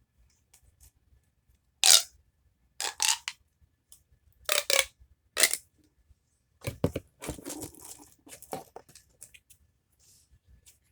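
Plastic fidget toys and packaging being handled: a series of short, sharp crackling rustles, the loudest about two seconds in, then a longer scratchy rustle around seven seconds in.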